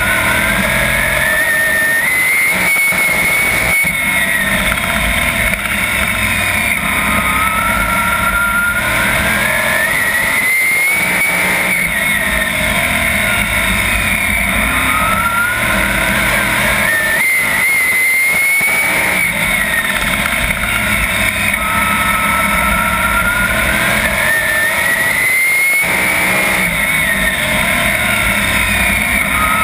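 410 sprint car's V8 engine heard on board at racing speed: its pitch climbs on each straight and drops back into each turn, about every seven seconds.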